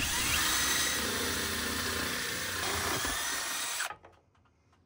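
Milwaukee M18 cordless drill running steadily with a hole saw, cutting up through the soffit of a roof eave. It cuts off abruptly about four seconds in.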